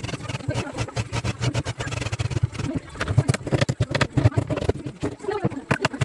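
A cordless drill bores into a plywood cabinet door. A hammer then taps a chisel into the wood in quick, irregular strokes, and the taps are loudest in the second half.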